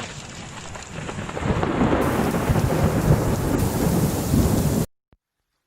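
Blizzard wind buffeting the microphone: a dense rushing rumble that builds after about a second and then cuts off suddenly near the end.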